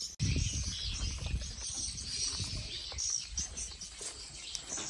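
Birds and insects chirping and calling over irregular low thumps from footsteps and the camera being carried.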